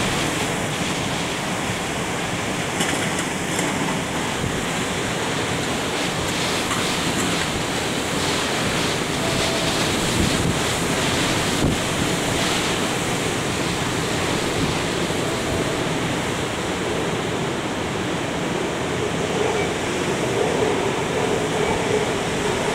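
Hurricane-force wind and driving rain, a steady dense rush of noise with gusts buffeting the microphone.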